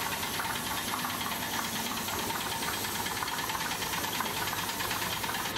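Piston air compressor running with a fast, even knock, under the hiss of a gravity-feed spray gun spraying paint.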